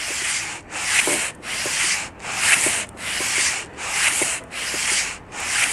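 Sandpaper on a flat board being pushed back and forth over the deck of a cast iron engine block, the 1984 Mustang SVO's 2.3-litre four-cylinder: a steady rasping stroke roughly three times every two seconds, with a brief break at each turn. It is resurfacing the block's head-gasket face by hand, cutting down the high spots.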